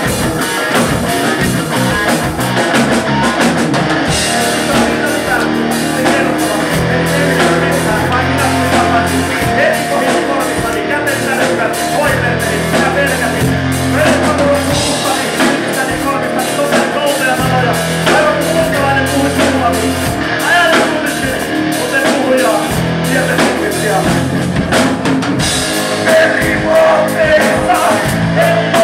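Live rock band playing loud: distorted electric guitars, bass and a drum kit, with a man singing into the microphone.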